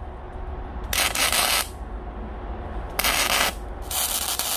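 Stick (arc) welder crackling on steel tube in three short bursts about half a second each, as the electrode strikes and holds an arc, over a steady low hum.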